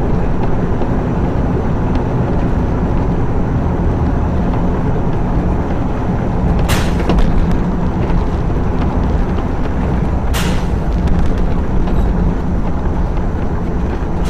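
Steady engine and road noise inside a moving vehicle, picked up by the dashcam, with two sharp clicks about four seconds apart midway through.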